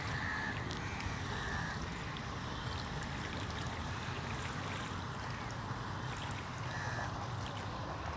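Steady open-air ambience over a wide lake: wind and rippling water make an even rushing noise, with three brief high calls, two in the first two seconds and one near the end.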